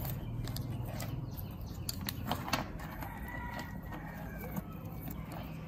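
Sharp clicks and taps as the small plastic frame and circuit board of a toy drone are handled and pried with a screwdriver. A rooster crows faintly in the background about three seconds in, over a steady low hum.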